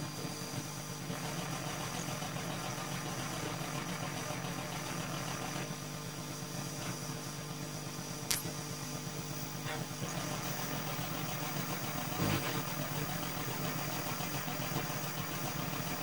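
Abstract experimental electronic music from a vinyl record: a steady, hum-like low drone with thin high tones above it. A sharp click comes about eight seconds in and a brief low thump a little after twelve seconds.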